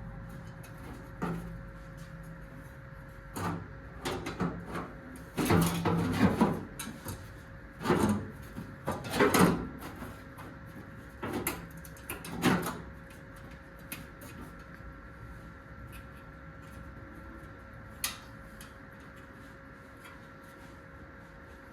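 Sheet-metal body panel being handled and test-fitted: irregular clunks, knocks and rattling scrapes of metal against metal, thickest in the first half, with one sharp knock later, over a steady faint hum.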